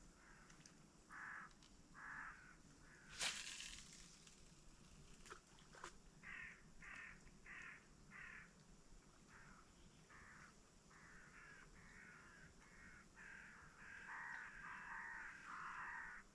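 Crows cawing faintly in a series of short calls, a run of four evenly spaced caws and then calls crowding together near the end, with one sharp click about three seconds in.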